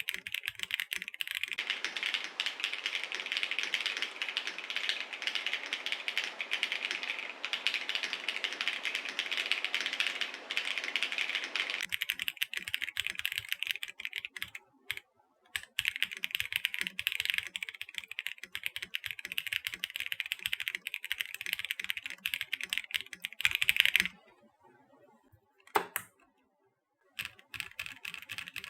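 Typing on a GAS67 plastic-cased mechanical keyboard fitted with lubed and filmed KTT Strawberry linear switches and XMI keycaps: fast, continuous keystrokes. The typing stops about 24 seconds in, followed by a few scattered single keystrokes near the end.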